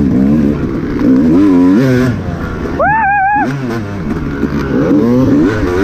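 Off-road racing dirt bike's engine revving up and down as it is ridden hard, the pitch rising and falling with each throttle change. About three seconds in it briefly screams at high revs for half a second, then drops back.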